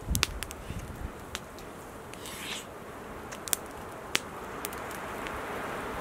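Wood campfire crackling, with sharp pops scattered irregularly through it over a steady rushing background that grows a little louder in the second half.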